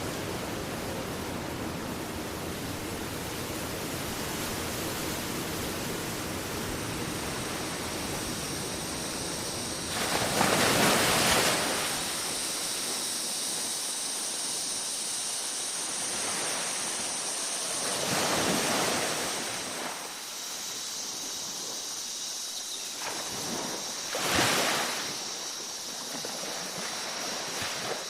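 Tropical beach ambience: a steady rush of surf, then waves washing in and drawing back about every six to eight seconds, the loudest about ten seconds in. From about eight seconds in, tropical insects keep up a steady high-pitched drone.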